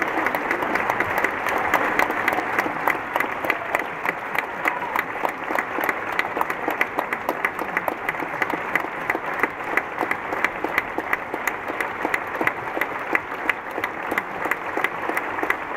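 Theatre audience applauding steadily, a dense patter of many hands with a few sharper, closer claps standing out.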